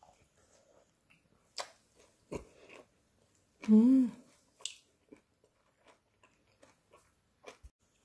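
A woman eating with scattered quiet chewing and mouth clicks. About four seconds in comes one short hum with the voice, rising then falling in pitch, the loudest sound, as she tastes the food she goes on to call delicious.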